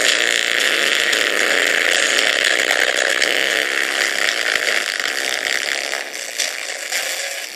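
Small alarm-clock speaker driven far past its limit: a loud, harsh, buzzing distorted noise that weakens near the end as the speaker gives out.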